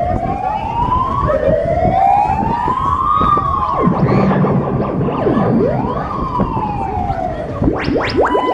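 A siren-like wailing effect from a fairground ride's sound system: one tone sliding slowly up and down over a few seconds at a time, above a steady rush of ride noise. Near the end, quick repeated upward sweeps begin.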